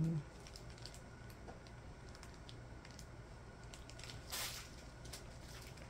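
Small plastic zip bags of diamond painting drills rustling faintly as they are handled and set down, with one brief crinkle about four and a half seconds in.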